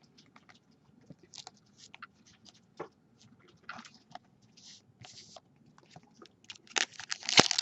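Trading cards being handled: faint scattered clicks and soft rustles, then about seven seconds in a much louder crinkling and crackling, typical of a foil card-pack wrapper being torn open.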